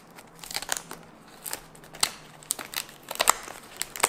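Tape-wrapped cardboard parcel being opened: irregular crackling and scratching of packing tape and cardboard as it is picked at and cut with a pocket knife.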